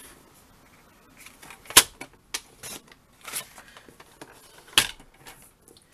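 Paper trimmer cutting a sheet of patterned card stock: a loud sharp click about two seconds in and another near the end, with quieter clicks and a short scraping rasp between them.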